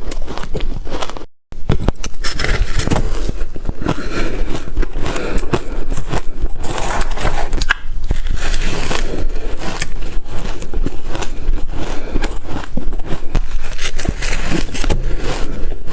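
Ice being bitten and chewed up close: a dense, continuous run of crunches and sharp cracks with squeaky, scraping grinding between them. About a second and a half in, the sound drops out for a moment.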